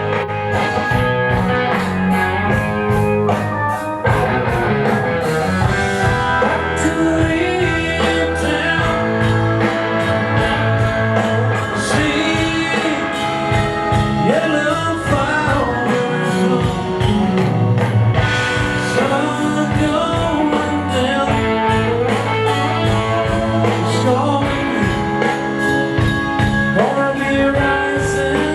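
Live rock band playing a blues-rock number through a sound check: electric guitar with bent notes over bass and a steady drum beat.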